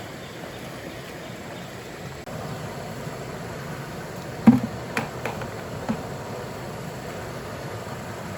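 A handful of sharp knocks over a steady background hiss. The loudest comes about four and a half seconds in, followed by three lighter ones over the next second and a half.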